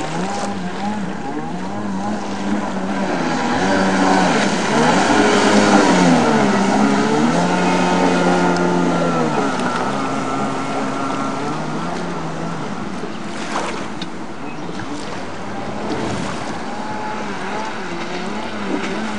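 Yamaha Wave Blaster personal watercraft's two-stroke engine revving up and down again and again as it is thrown through tricks, with the hiss of water spray. It is loudest a few seconds in, and there is one sharp crack a little past halfway.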